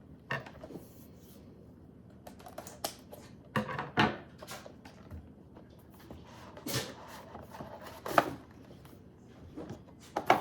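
A taped cardboard cake box being opened by hand: irregular clicks, taps and short rustles of tape and paper packaging being pulled and handled.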